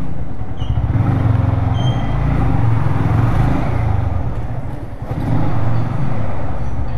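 Yamaha MT-15's single-cylinder engine running at low speed as the motorcycle is ridden slowly. The engine note eases off briefly about five seconds in, then picks up again.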